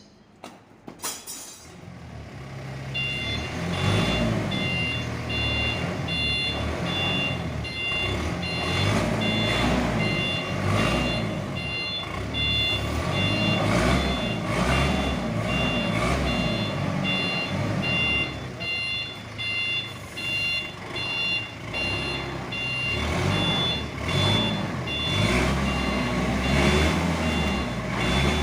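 A vehicle's reversing alarm beeping steadily, about two beeps a second, starting a few seconds in, over the low running of its engine, with occasional knocks.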